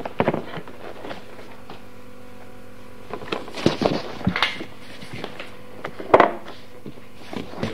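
Handling noises on a table: a few short rustles and knocks, most of them in a cluster around the middle and one sharp knock a little after six seconds, over a faint steady hum from the recording.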